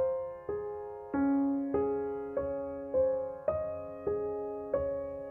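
Background piano music: a slow, even run of notes struck about every 0.6 seconds, each one dying away before the next.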